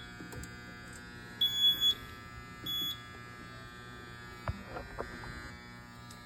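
Fire alarm control panel's trouble sounder beeping twice, a high beep about one and a half seconds in and a shorter one near three seconds, signalling a trouble condition, over a steady electrical hum. A couple of sharp clicks follow near the end.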